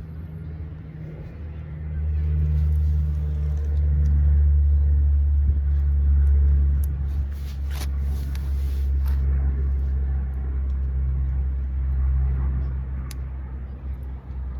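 A motor engine running with a steady low hum, growing louder about two seconds in and easing off after about seven seconds. A few faint clicks sound over it.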